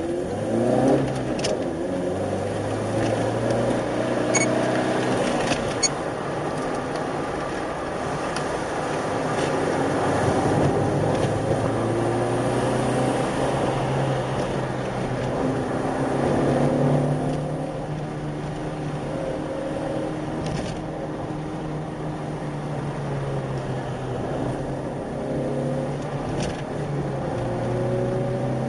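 Nissan R35 GT-R's twin-turbo V6 running through the cabin on a downhill run, its engine note holding steady between pitch steps up and down as speed and throttle change, over steady road noise.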